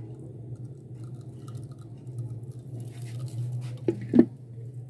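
Oil poured onto a lump of hot charcoal in a steel bowl, crackling and sizzling faintly as it starts to smoke for the dhungar (charcoal smoking) of chicken tikka. Two sharp knocks come about four seconds in, the second louder, over a steady low hum.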